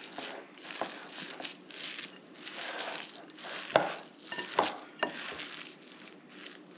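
Two silicone spatulas stirring and scraping a thick, sticky batter of crushed vanilla wafers and pecans in a glass bowl, a wet, gritty churning. A few sharp knocks stand out, the loudest about four seconds in.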